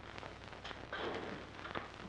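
Crackle and scattered faint clicks of an old film soundtrack over a steady low hum and hiss, with a brief soft noise about a second in.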